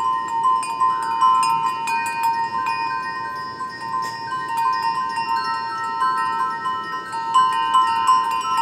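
Chimes ringing: many overlapping struck metallic tones starting at irregular moments and ringing on, with one lower tone sounding throughout.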